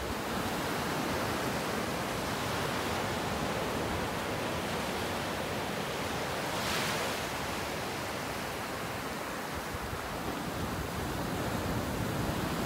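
Small ocean waves breaking and washing up a sandy beach: a steady hiss of surf, swelling briefly once a little past the middle.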